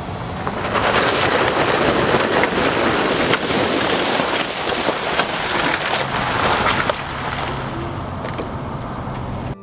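Off-road vehicle splashing through a muddy puddle: a long rush of sprayed water and tyre noise with scattered knocks, easing off about seven seconds in.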